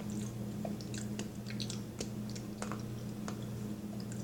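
A person chewing a mouthful of macaroni salad close to the microphone: soft, wet, irregular mouth clicks and squelches, over a steady low hum.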